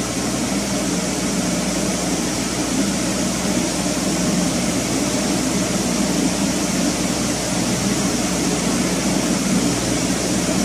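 Steady machinery noise in a ship's engine room: a continuous hum with a hiss over it, with no distinct knocks or changes.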